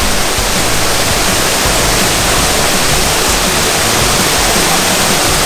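Steady rushing noise of falling water, even and unbroken throughout.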